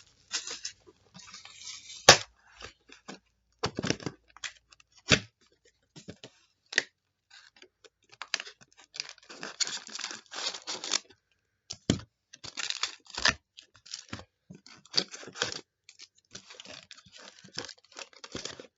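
Trading-card box packaging being handled: irregular tearing and crinkling of wrapper and cardboard, with a few sharp knocks and taps.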